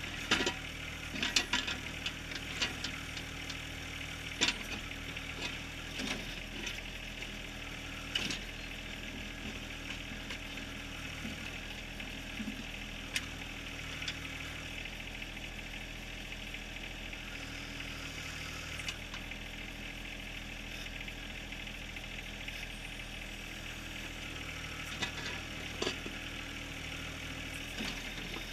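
John Deere 1023R compact tractor's three-cylinder diesel running steadily under backhoe work, with sharp clanks and knocks of the bucket on rock, several in the first eight seconds and a few more near the end.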